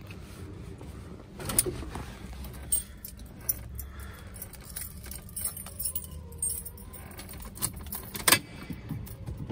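Car keys jangling, with a few sharp clicks, the loudest about one and a half seconds in and again near the end, as the ignition key is handled before the cold start.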